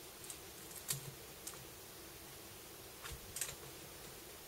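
A few light clicks and taps of fingertips pressing tape down over the display cable connector on the back of a laptop LCD panel: one about a second in and a short cluster about three seconds in, over a faint steady hum.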